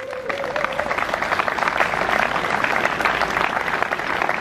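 A crowd applauding: many hands clapping in a dense, even patter.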